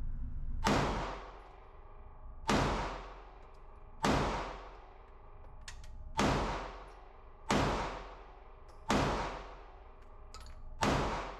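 Seven pistol shots from a Smith & Wesson Shield Plus micro-compact 9mm, fired one at a time about one and a half seconds apart. Each crack rings on in the reverberation of an indoor range.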